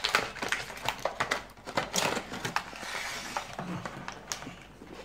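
Cardboard toy box being pulled apart and its clear plastic tray handled: rustling and crackling with many quick clicks in the first couple of seconds, growing quieter toward the end.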